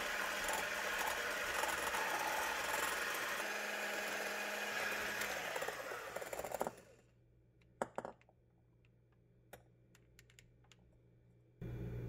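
Electric hand mixer whipping egg whites into meringue in a glass bowl. It runs steadily for about six and a half seconds, then stops, and a few light clicks follow. A low hum comes in near the end.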